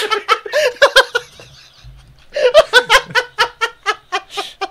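People laughing in two bouts of rapid, rhythmic, high-pitched giggling: one in the first second, and another starting about halfway through that runs almost to the end.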